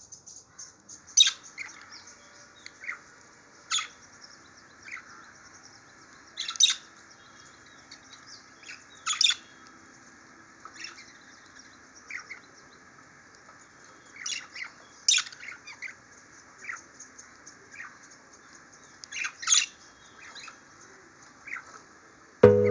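Small pet birds giving short, sharp squawks and chirps at irregular intervals, with softer twittering between them.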